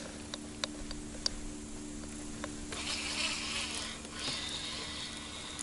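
Spinning reel retrieving a lure: a few light clicks in the first second and a half, then about a second of reel-cranking whirr around three seconds in, over a faint steady hum.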